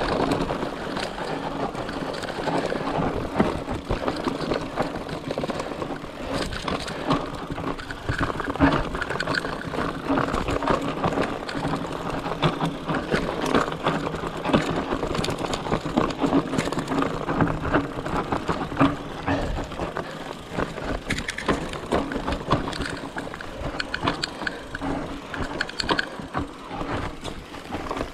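Votec 29er mountain bike rattling over a rough trail: continuous tyre noise with many quick, irregular knocks and clatters from the bike.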